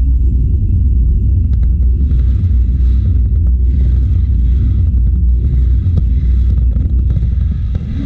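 Fireworks display: a steady deep rumble, with patches of fizzing hiss coming in from about two seconds in.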